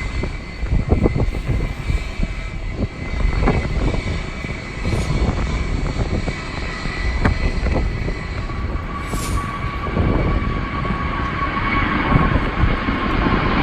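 Jet airliner engines whining at the airport, with a steady high tone that grows louder over the last few seconds, under heavy wind buffeting on the microphone.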